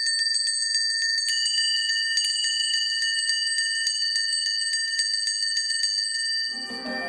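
Several high, steady bell-like ringing tones held together, with another tone joining about a second in. Near the end a band comes in underneath with fuller music.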